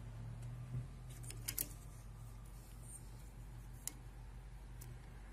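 Light clicks from hands handling the print head carriage of an Epson LQ-2190 dot matrix printer: a quick cluster about a second and a half in and a single click near four seconds, over a steady low hum.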